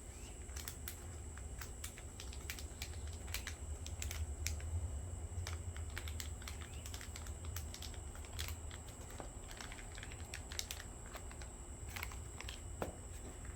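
Irregular light clicks and taps of small hard plastic parts and packaging being handled, over a low steady hum.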